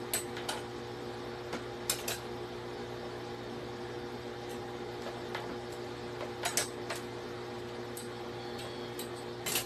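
Steady mechanical hum with a few short clicks and rustles as an electric clothes iron is pushed and set down on cloth on an ironing board.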